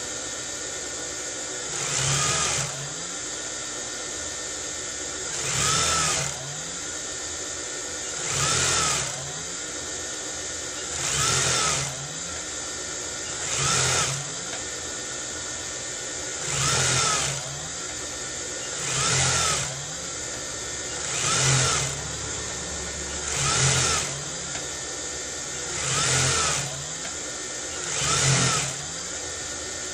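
Industrial sewing machine running: a steady motor hum, with short bursts of stitching about every two and a half seconds, each rising in pitch and then falling as the machine speeds up and stops.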